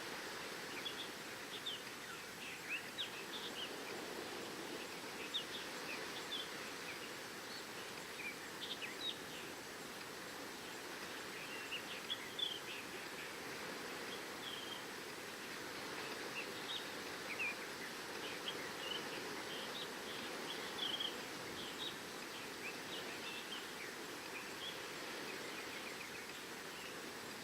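Steady wash of sea waves on the shore, with many short, high bird chirps and twitters scattered throughout.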